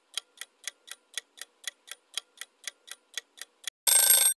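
Clock-ticking sound effect for a quiz countdown timer, about four even ticks a second, ending near the end in a short, loud time's-up sound effect.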